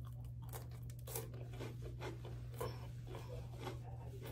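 A person biting into and chewing crisp garlic bread close to the microphone, with scattered small crunches and crackles. A steady low hum runs underneath.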